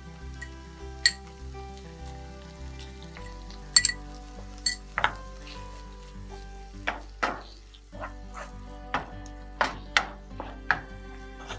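Chopped onion and mushrooms sizzling in oil in a nonstick frying pan while a wooden spoon stirs them, with sharp knocks of the spoon against the pan that come more often in the second half.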